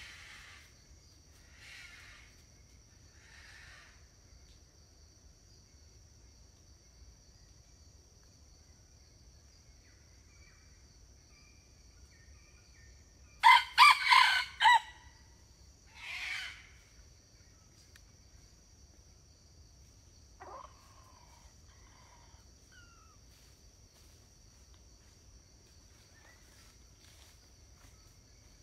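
Red junglefowl rooster crowing once, a short loud crow about halfway through, followed by a shorter, rougher burst a couple of seconds later and a faint call after that.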